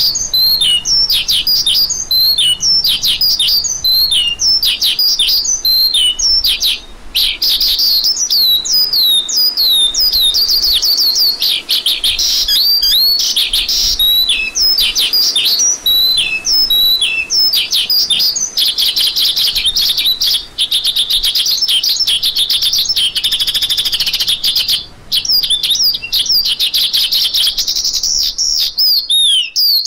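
A lark singing: a long, nearly unbroken stream of rapid high chirps and quick down-sweeping whistled notes, with only a few brief pauses.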